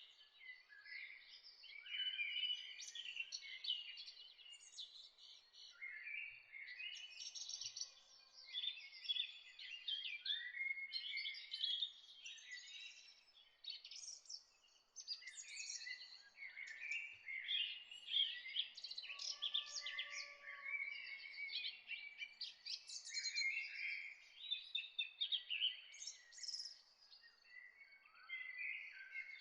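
Several birds chirping and singing at once: dense, overlapping calls with hardly a pause, with a thin steady high note running underneath.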